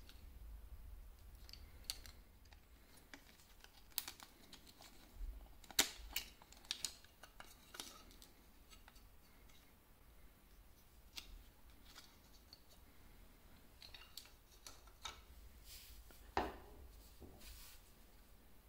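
Scattered sharp plastic clicks and snaps from handling a wristwatch and its clear plastic display holder, with the loudest snaps about six seconds in and again near the end.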